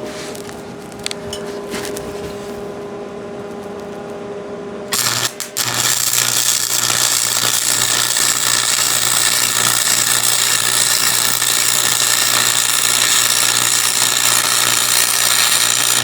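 A welder's steady hum, then about five seconds in an electric arc strikes, breaks off briefly and settles into a continuous weld: a loud, even crackling hiss over a low steady buzz. It stops abruptly at the end as the bead is finished.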